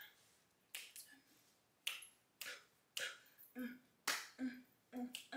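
Fingers snapping in a loose rhythm, a sharp snap roughly every half-second to second, with a soft hummed voice joining in about halfway through.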